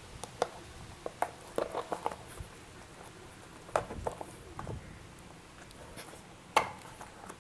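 Cardboard shipping box being handled and opened by hand: fingers picking and scratching at the packing tape, with scattered small clicks and taps from the carton.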